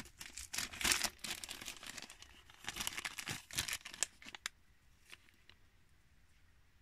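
Packaging crinkling and rustling as it is handled, in irregular crackly bursts for about four seconds, then dying away to a few faint ticks.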